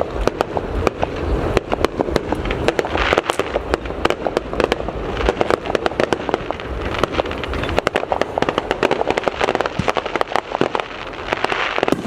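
Aerial fireworks display: a dense, continuous run of sharp cracks and bangs with steady crackling, over low booming rumble.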